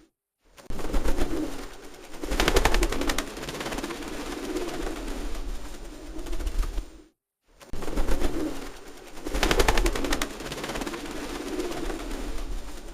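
Pigeons cooing in low, rolling phrases, with several bursts of rapid clattering laid over them. The sound drops out briefly twice, just after the start and about seven seconds in.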